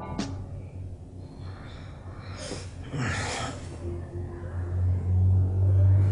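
A man breathing heavily as he stirs in bed, with two noisy breaths about two and a half and three seconds in. Under them runs a low steady hum that swells near the end.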